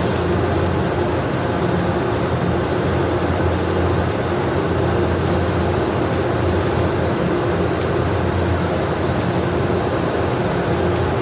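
Stick welding arc crackling and hissing steadily, starting right at the beginning, over a steady low hum.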